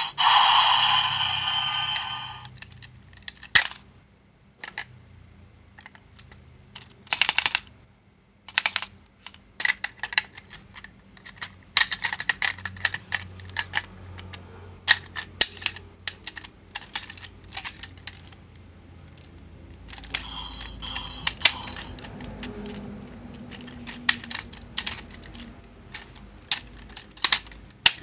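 Hard plastic parts of a DX Build Phone toy motorcycle clicking and snapping as it is handled and folded up, in scattered single clicks and short runs. A loud electronic sound from the toy cuts off about two and a half seconds in.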